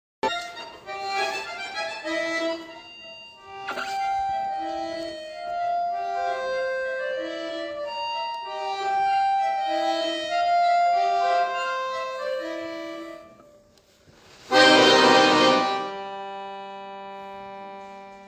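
Solo accordion playing a slow melody of single held notes over a repeated lower note. About fifteen seconds in, a sudden loud full chord sounds, then eases into a softer sustained chord that is held through the end.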